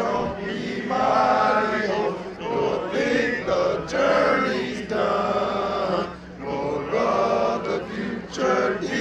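A group of men chanting together in unison, fraternity brothers in a huddle, in phrases of a second or so with short breaks between them.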